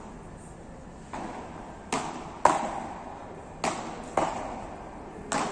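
Beach tennis paddles hitting the ball in a quick rally: about six sharp hits from a second in onward, the loudest about two and a half seconds in, each echoing briefly in a large hall.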